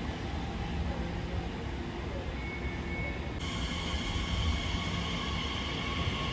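Elizabeth line Class 345 electric train moving along the platform: a steady low rumble of wheels on rail. A faint, high, steady whine joins about three and a half seconds in.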